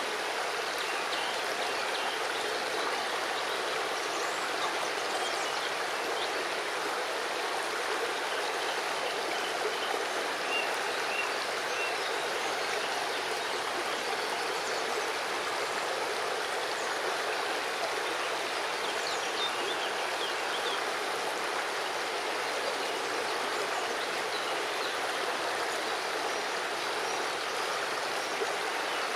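River water running over stones, a steady rushing babble at an even level.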